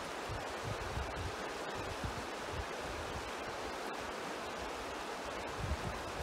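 Fast-flowing river rushing over rocks, a steady, even noise, with wind buffeting the microphone in irregular low rumbles.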